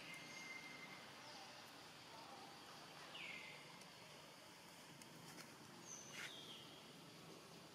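Faint outdoor background noise with a few short, high animal calls that fall in pitch, one about three seconds in and another near six seconds.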